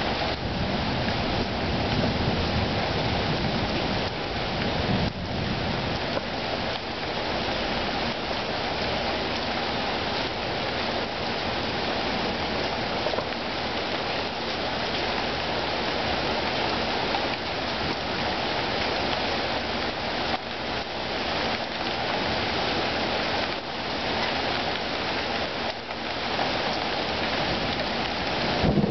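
Thunderstorm downpour: heavy rain falling in a steady, even hiss on hard surfaces.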